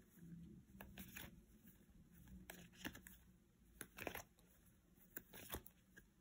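Mostly quiet, with a few soft scattered clicks and rustles of trading cards being handled and spread out.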